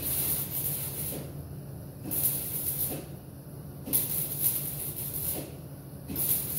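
Welding arc crackling and hissing on the M151A1's sheet-steel body in short bursts of about a second, four in a row, as a patch panel is stitch-welded in. A steady low hum runs underneath.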